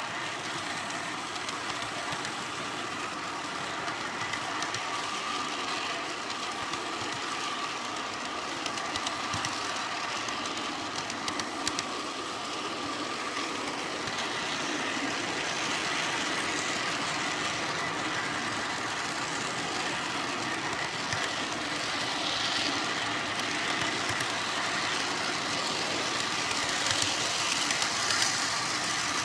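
G-scale garden-railway train rolling along the track, heard from on board the caboose: a steady rolling rattle of small wheels on rail with a faint steady whine underneath and occasional clicks, a little louder in the second half.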